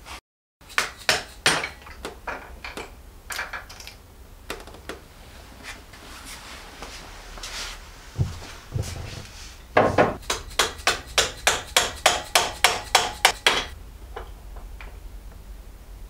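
Metal hand tools clinking and knocking while Td5 diesel injectors are taken out and refitted. Later comes a steady run of sharp clicks, about four a second, for a few seconds.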